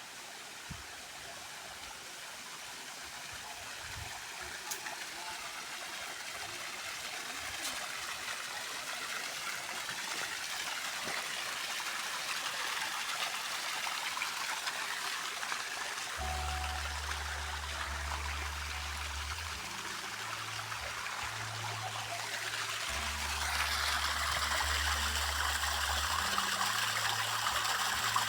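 Flowing stream water, a steady rushing that grows gradually louder. From about halfway, music with a deep bass line joins it.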